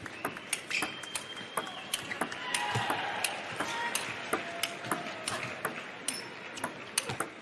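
Table tennis rally: the celluloid ball clicking off the rubber bats and the table several times a second in a steady back-and-forth.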